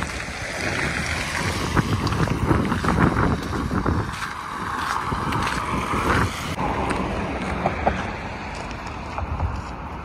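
Wind buffeting the microphone, with car traffic passing on the road; the louder passing noise stops sharply about six and a half seconds in.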